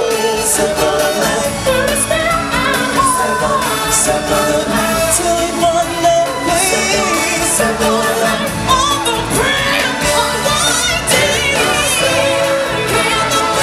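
A live stage musical performance: singers with vibrato over loud amplified backing music, with regular cymbal strokes.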